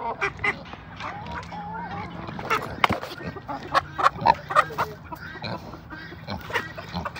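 Domestic ducks quacking in a busy run of short, sharp calls.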